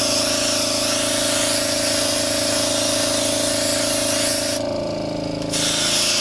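Dual-action airbrush hissing steadily as it sprays a light coat of paint, with a steady hum beneath. The hiss stops for about a second near the end, then starts again.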